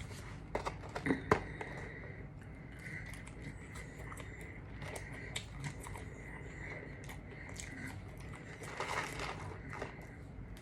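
Close-up eating sounds from a KFC meal: chewing and crunching, with crinkling of the paper food packaging. There are short sharp clicks throughout, and the loudest cluster comes about a second in.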